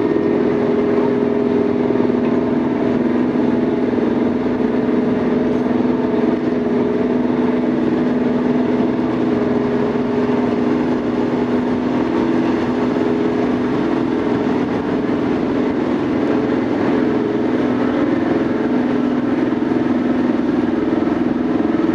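Marine diesel engine running steadily with a droning hum, its pitch shifting slightly about halfway through and again near the end.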